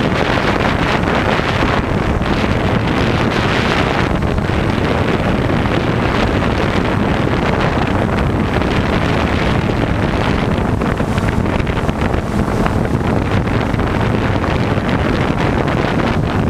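DJI Phantom quadcopter's motors and propellers running, heard through its onboard camera's microphone as a loud, steady whir mixed with wind noise on the mic.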